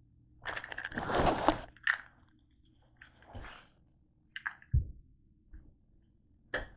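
Handling noises: a burst of rustling about a second in, then scattered clicks and knocks with a dull thump near the middle.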